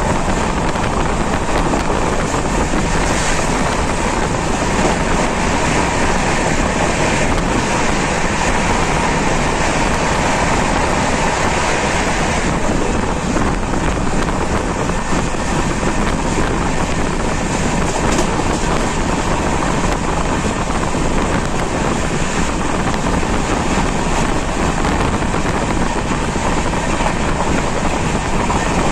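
Indian Railways express passenger train running along the line: a steady, loud rumble and rush of wheels on rails. A higher hiss swells for several seconds in the first half.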